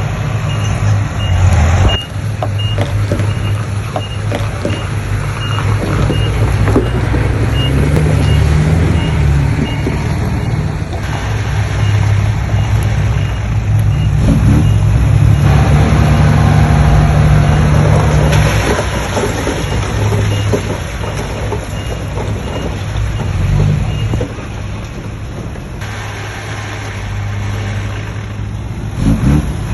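Heavy diesel earthmoving machinery running under varying load, with a reversing alarm beeping about once a second that stops about 24 seconds in.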